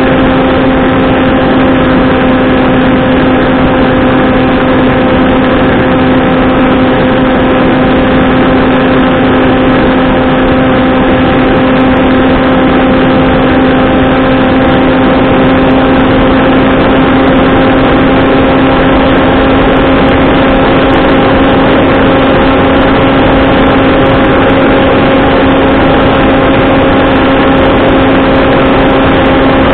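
Skywalker Falcon flying wing's electric motor and propeller buzzing at a steady pitch in flight, with wind rushing over the airframe, picked up close by the onboard camera's microphone.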